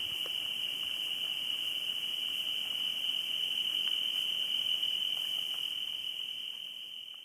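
A steady, continuous chorus of crickets singing at night, with a few faint scattered clicks; it fades out near the end.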